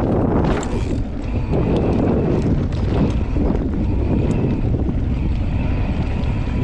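Wind rushing over a camera microphone on a moving bicycle: a steady low rumble.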